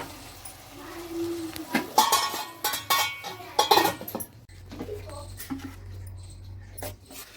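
A metal spoon scraping and knocking against a cooking pan as curry is scooped out into a serving bowl, in a dense clatter between about two and four seconds in, with lighter taps afterwards.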